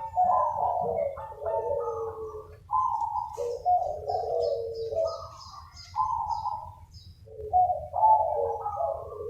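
Several zebra doves cooing in overlapping, answering phrases, briefly falling quiet about seven seconds in before starting again. A small bird gives a quick series of high chirps in the middle.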